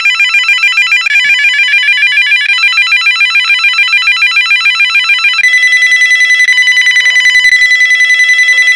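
VTech CS5113 cordless phone handset's electronic ringer playing its selectable ring tones: a loud, rapidly pulsing electronic ring that switches to a different ring pattern about a second in and again about five seconds in, as the ringer choices are stepped through.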